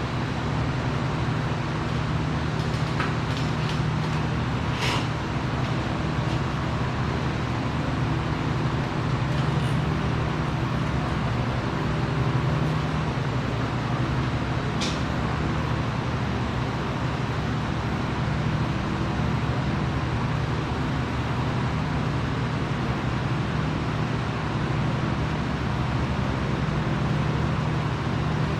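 Steady machine hum with a constant low drone and even noise, broken by a few sharp clicks about four seconds in and once near the middle.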